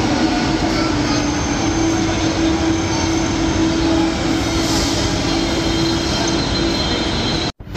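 NS VIRM double-deck electric multiple unit pulling into the platform: a steady rolling rush of wheels on rail with a steady low hum and faint high-pitched tones over it. The sound cuts off abruptly near the end.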